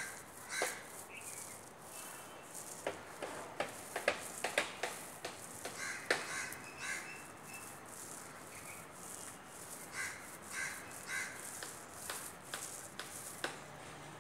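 Crows cawing in short runs of a few caws, the clearest run about ten seconds in, over scattered sharp knocks and scrapes.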